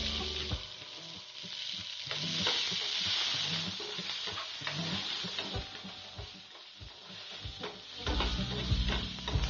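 Chopped onions sizzling in hot oil while a steel perforated skimmer spoon stirs them, scraping and tapping on the pan.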